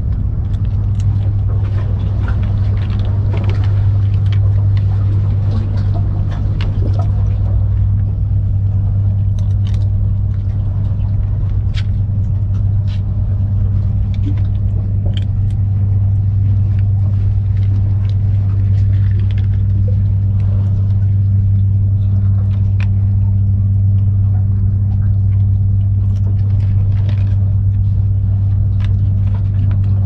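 A loud, steady, low mechanical hum, with scattered faint ticks from kittens eating off a plate.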